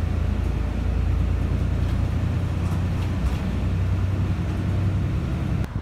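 Steady low engine and road rumble heard from inside a moving bus. It stops suddenly near the end.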